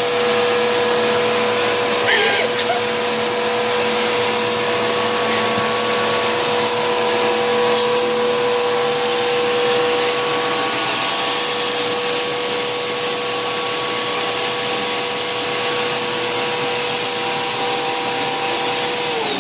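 Vacuum cleaner running steadily with a motor whine and hiss, then switched off at the very end, its motor winding down in pitch.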